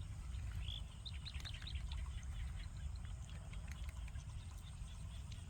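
Outdoor ambience: a steady low rumble, with a run of short, high bird chirps about a second in and a few faint scattered clicks.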